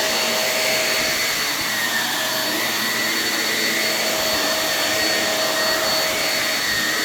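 Shark Navigator NV22L upright vacuum running steadily with both its suction motor and its motorised brush roll on. It makes an even rush of air with a steady high whine over it.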